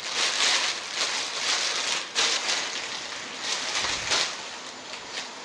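Clear plastic bag crinkling in irregular bursts as it is handled and opened.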